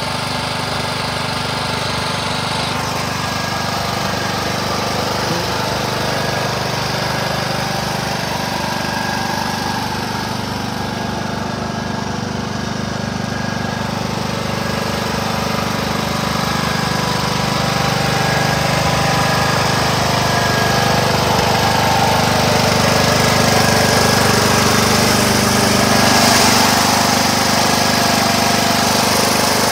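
Craftsman YT 3000 lawn tractor's 21 hp Briggs & Stratton engine running steadily with an even beat, louder in the second half.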